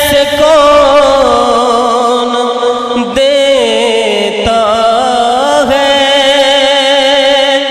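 A man singing a naat in a long melismatic phrase: drawn-out notes with wavering ornaments that sink in the middle and climb again, with a short break about three seconds in.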